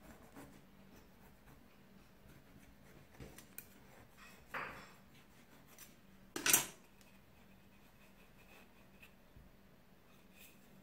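A knife scraping against the metal tube of an aluminium chiffon cake pan as the cake is cut free, with small clicks, a short scrape about four and a half seconds in and a louder, sharper scrape or clatter about six and a half seconds in.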